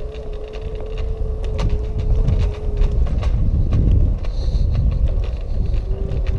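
Lime electric scooter ride: wind rumbling on the microphone and the scooter's motor giving a steady whine, which drops out about halfway through and comes back near the end, with scattered clicks and rattles from the ride over the path.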